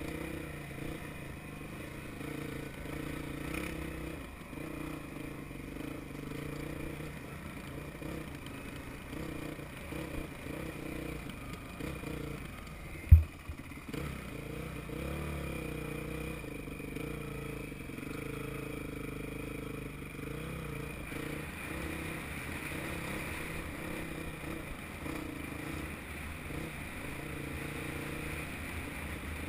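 Dirt bike engine running at a low, fairly steady speed, picked up by a helmet-mounted camera on the bike. A single sharp knock sounds about 13 seconds in.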